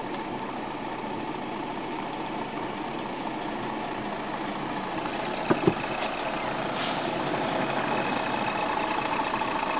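Diesel engine of a Mercedes-Benz Actros dump truck running close by, heard from inside a car creeping past it. There are two short knocks about five and a half seconds in and a brief air-brake hiss about a second later.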